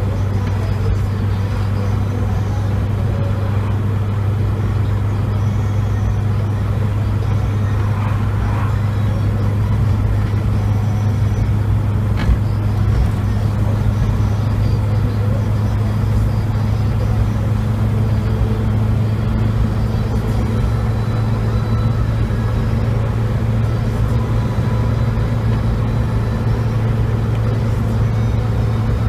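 Classic car driving at a steady speed, heard from inside the cabin: a steady low engine drone with road noise. There is one short click about twelve seconds in.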